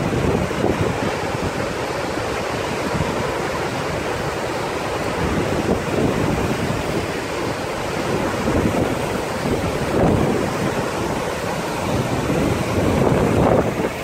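Gullfoss waterfall on the Hvítá river: a steady roar of heavy falling and churning water, with wind buffeting the microphone in uneven gusts.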